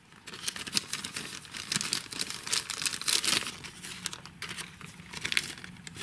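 Paper crinkling and rustling in irregular crackles as hands unfold a paper wrap of seeds and handle a seed packet.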